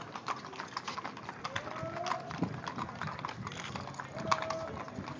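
Hooves of a passing cattle drive clopping on hard ground: many irregular hoof strikes overlapping, with a louder knock about four seconds in.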